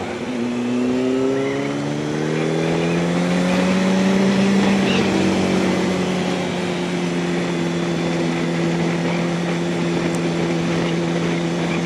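Yamaha R1's inline-four engine pulling up through the revs for the first four seconds or so, then holding a steady note at cruising speed. Wind and road noise run underneath.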